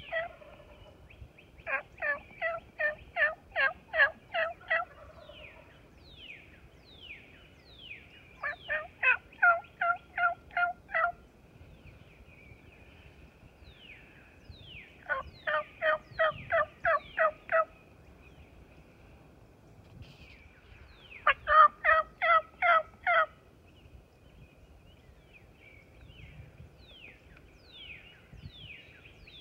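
A man imitating a hen turkey's yelps with his mouth, without a turkey call. He gives four runs of about seven to ten quick, evenly spaced yelps, roughly four a second, with a few seconds' pause between runs. Short, faint, downward-sliding bird chirps sound in the pauses.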